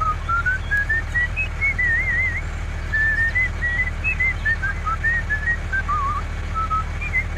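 A whistled tune: a string of short notes that hop up and down, with a few warbling trills, over a steady low hum.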